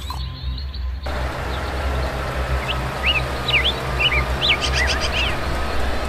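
Small birds chirping, short rising and falling chirps and a quick run of repeated notes, over a steady low rumble.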